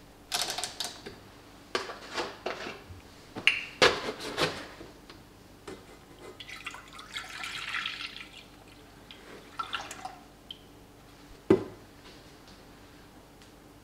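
Milk being poured from a plastic jug into a stainless-steel saucepan, splashing in several spells with a longer steady pour in the middle. A few sharp knocks, one about four seconds in and one near the end.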